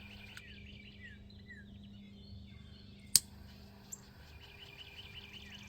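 Faint repeated bird chirps over a steady low hum, with one sharp click about three seconds in.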